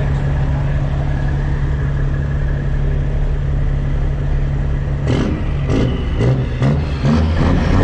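Semi-truck diesel engine idling with a steady low drone. About five seconds in the drone gives way to uneven, louder sounds that start and stop.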